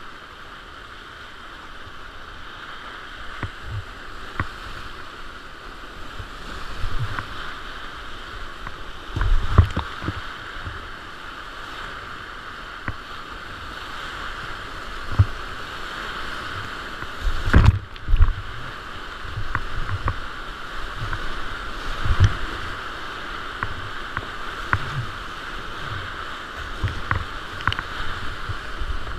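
Whitewater rapids rushing steadily around a kayak, heard from the boat itself, with irregular low thumps and splashes as paddle strokes and waves hit the hull and camera. The heaviest hits come a little past the middle.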